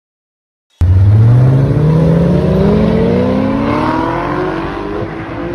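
After a moment of silence, a car engine accelerating hard, its pitch rising steadily for about four seconds.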